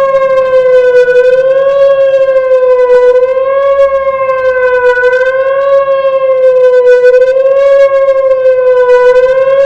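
Outdoor warning siren sounding a steady tone during a test, its pitch wavering slightly up and down about every two seconds.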